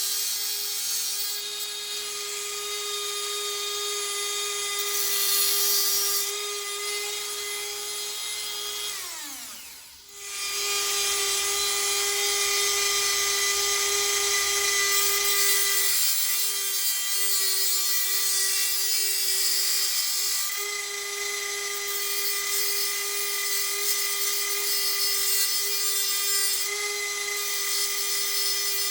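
Dremel 4000 rotary tool running at a steady high whine while grinding a small steel part, with changing hiss as the bit works. About nine seconds in it is switched off and spins down, then it starts again and runs on.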